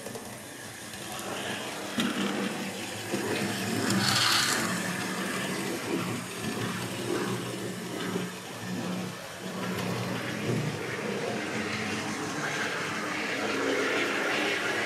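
Bachmann OO-gauge Class 56xx 0-6-2 tank locomotive model running on the layout track: a steady electric-motor hum with the rattle of its wheels on the rails, running rather well. It grows a little louder about four seconds in.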